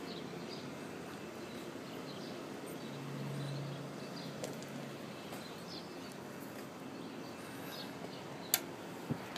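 Quiet outdoor background noise with faint high chirps, a low hum that swells briefly around three seconds in, and two sharp clicks near the end. The motorcycle's engine is not running.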